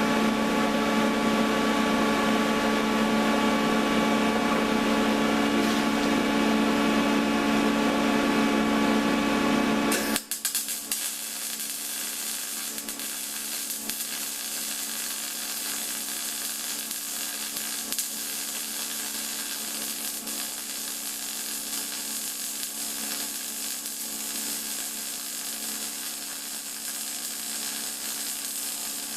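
A loud, steady machine hum for about ten seconds. It cuts off abruptly and is followed by the steady crackling sizzle of a welding arc as a bead is laid on steel.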